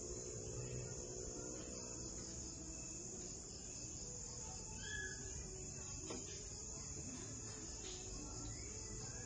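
Steady high-pitched trilling of night insects such as crickets, with a few faint short chirps near the middle.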